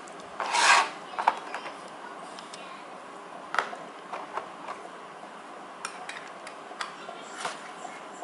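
Clear plastic blister packaging being handled and rubbed on a table: a short rasping rub about half a second in, then scattered light clicks and taps.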